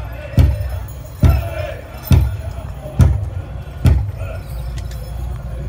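Big powwow drum struck with heavy, evenly spaced beats a little under a second apart, the last of them about four seconds in, with a trace of singing at the start. After the beats stop, a crowd murmurs.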